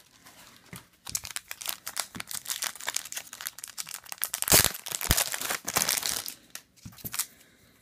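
Clear plastic bag crinkling and rustling as a stack of trading cards is handled and worked out of it, with a sharper snap a little past halfway.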